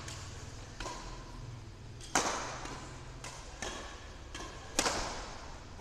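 Badminton rally: a quick series of sharp racket hits on the shuttlecock, about seven in all, the loudest a little past two seconds and just before the end, each ringing briefly in a large hall.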